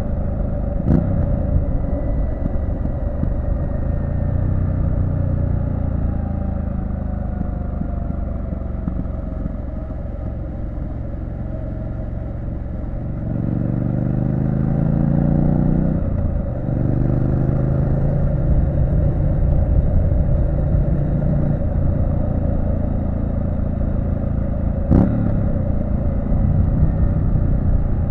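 Triumph Street Scrambler 900's parallel-twin engine running on the road, heard from the bike itself with wind rush: the engine note eases off early, then climbs under acceleration about halfway through, drops briefly at a gear change and climbs again before holding steady. Two sharp knocks, about a second in and near the end.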